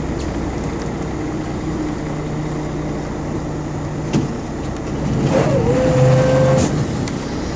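Fishing boat's engine running steadily under the wash of water along the hull. About five seconds in, a short whine dips, then holds one pitch for about a second.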